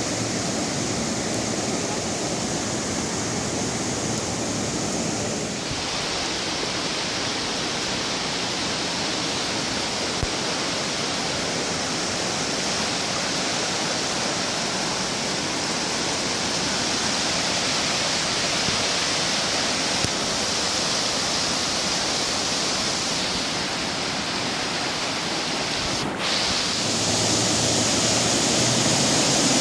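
A creek in flood: the steady, rushing noise of fast, high water. Twice, a few seconds in and near the end, the sound suddenly changes its balance between high and low tones, as if the view jumps to another stretch of the torrent.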